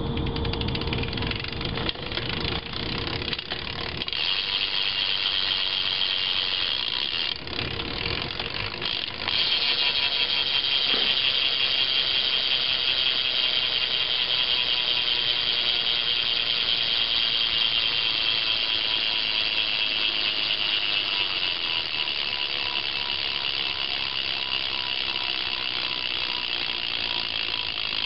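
BMX bike's rear hub freewheel ratcheting, a rapid continuous clicking that grows louder about ten seconds in and then holds steady, as the bike coasts.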